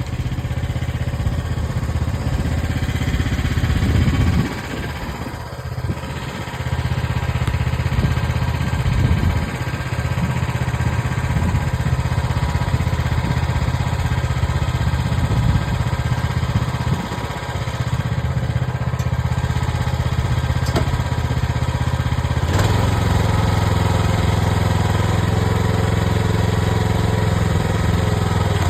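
AGT mini excavator's small engine running while it digs, its sound dipping briefly twice and then picking up again. A sharp knock comes about two-thirds of the way through, after which the engine runs evenly.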